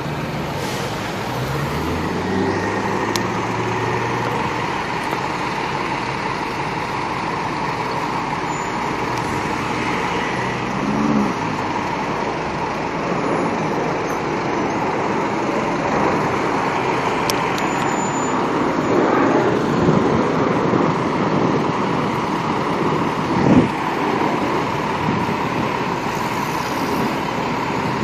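Street traffic: car and truck engines idling and moving off as a steady rumble. One engine revs up about a second in, and there is a short thump near the end.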